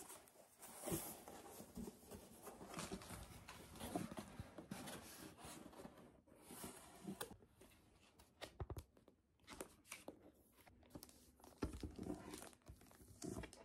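A cardboard delivery box handled and unpacked on a table: knocks and scrapes of the box, with tearing and rustling of cardboard and packaging, and a few sharper thumps, the strongest about a second in and near the end.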